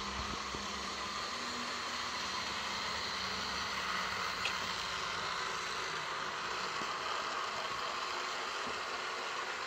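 Model electric trains running on a layout: a steady whir and hiss, with one short click about halfway through.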